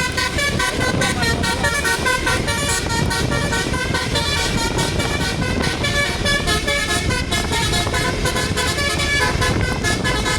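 Telolet basuri bus horn playing a quick tune of short notes that jump in pitch, with the bus engine and traffic noise running underneath.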